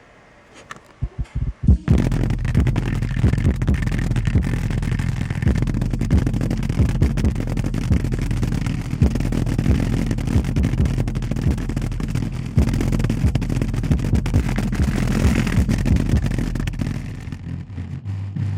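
Bass-heavy music played loud through the pickup truck's stereo, the low bass hits heavily distorted. A few short thumps about a second in, then steady loud play from about two seconds in, fading near the end.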